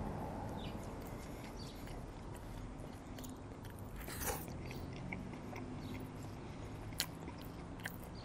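Close-miked eating: a bite into a sandwich about four seconds in, then chewing with small sharp mouth clicks.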